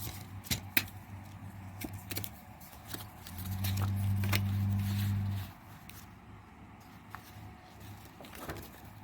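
Plastic CD jewel case and paper booklet being handled, giving a series of small clicks and ticks. A steady low hum rises about three and a half seconds in and stops about two seconds later.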